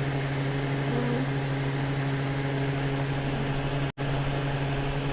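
Honeywell HT-900 TurboForce air circulator fan running on its highest speed, setting 3: a steady motor hum under an even rush of air. The sound cuts out for an instant about four seconds in.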